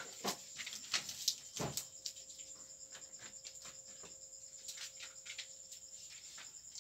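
Paper rustling with soft taps and scrapes as large paper chart strips are pressed and smoothed flat against a wall by hand, busiest in the first two seconds, over a faint steady hum.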